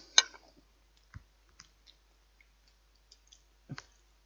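Scattered faint clicks and small knocks of eating with a knife and fork from a plate. A sharper click comes just after the start and a duller knock near the end.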